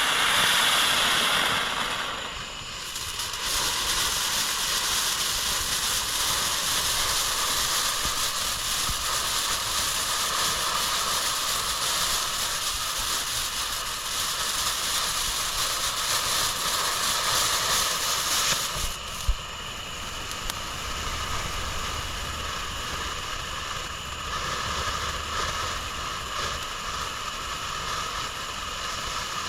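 Monkey Mania 'Spin Monkeys' firework fountain burning: a steady spray hiss with crackling. The tone shifts about two seconds in, and the fountain dies down a little after about eighteen seconds, with one sharp pop.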